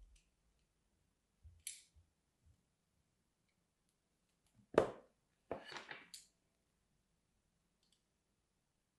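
Faint scrape of a thin blade on a bar of soap, then about five seconds in a sharp knock followed by a short crackle as the soap bar is handled.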